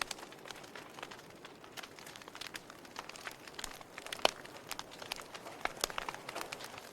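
Wood fire burning in a fireplace, crackling and popping irregularly over a soft hiss, with one sharp pop a little after four seconds in.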